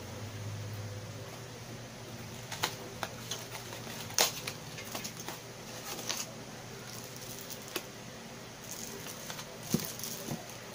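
Cardboard packaging and plastic wrapping being handled: scattered taps, clicks and rustles, the sharpest click about four seconds in, over a low steady hum.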